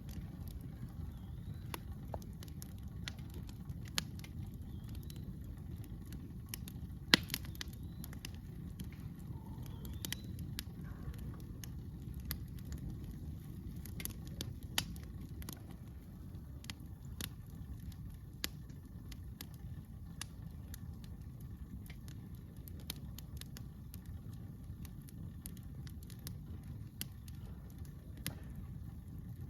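Campfire crackling: scattered sharp pops and snaps of burning wood, the loudest about seven seconds in, over a steady low rumble.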